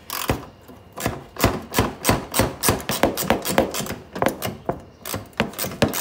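Hand ratchet clicking in quick, fairly regular strokes, about four or five a second from about a second in, as a bolt is loosened.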